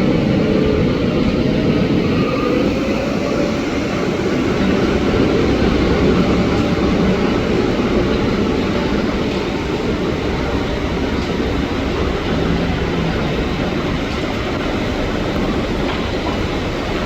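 Taiwan Railways EMU800 electric multiple unit running along the track with a steady, loud rail noise.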